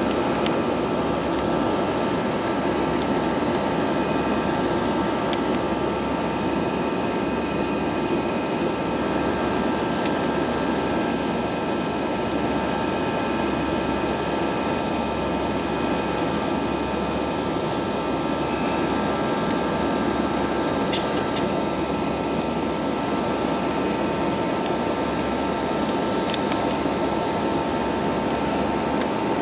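Steady cabin noise inside an Airbus A320 climbing after takeoff: engine drone and rushing air, with a steady tone running through it.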